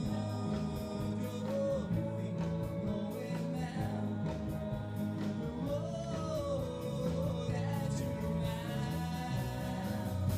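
A live band playing a song: a voice singing over the instruments, with a steady drum beat.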